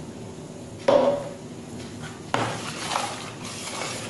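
Wooden spoon in a plastic mixing bowl: a sharp knock about a second in, then the spoon stirring and scraping through a thin liquid from a little past two seconds. The liquid is warm milk being mixed into yeast and sugar for pizza dough.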